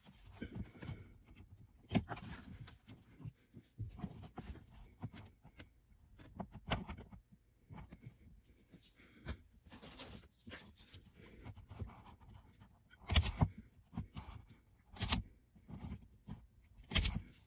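Hand work on car wiring: rustling of the wires and a string of small clicks and snips from wire strippers and a crimping tool on butt connectors, with three louder short bursts of noise in the last five seconds.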